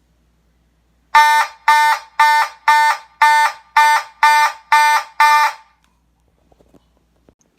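Simplex 2901-9806 fire alarm horn sounding nine short, loud blasts at about two a second, which stop about two seconds before the end.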